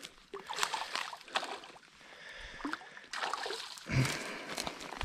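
Dry reeds rustling and fishing tackle clicking, then water splashing about four seconds in where a hooked bass swirls at the surface of the shallows.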